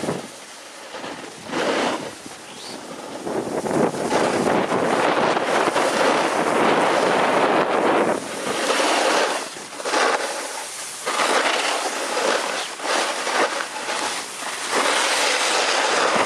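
Snowboard or ski edges scraping and carving over packed, groomed snow, with wind rushing over the microphone. The noise swells and fades every second or two as the turns change.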